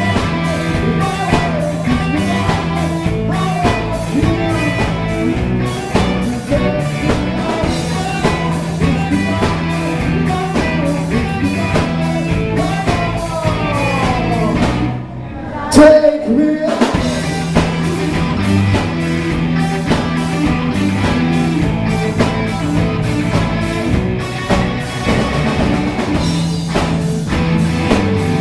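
Live rock band playing amplified electric guitar, bass and drums, with singing. A pitch glides down about thirteen seconds in, the music briefly drops out near fifteen seconds, and it comes back with a loud hit.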